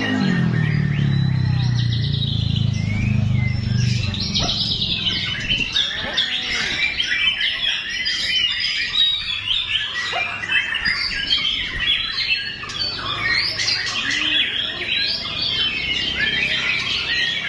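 White-rumped shama (murai batu) singing its full song: a continuous run of varied, fast-changing whistles and chirps. A low drone sits beneath it for the first four seconds or so.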